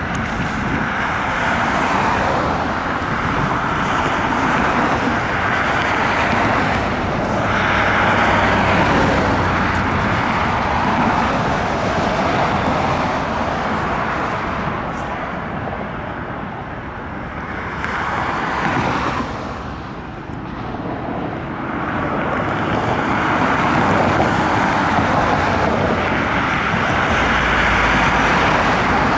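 Jet airliner engine noise heard from outside at an airport: a steady rushing sound that swells and eases several times.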